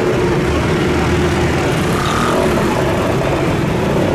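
Engines of a pack of motor scooters running steadily at low speed as they ride slowly past.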